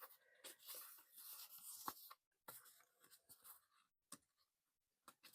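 Faint rustling and handling of paper bills and envelopes, with a light click a little under two seconds in.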